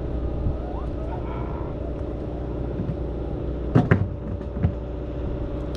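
Boat engine running with a steady drone. A few sharp knocks come about four seconds in.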